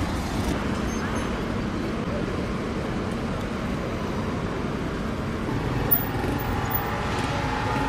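Steady hum of road traffic, with a brief sharp tap about six seconds in.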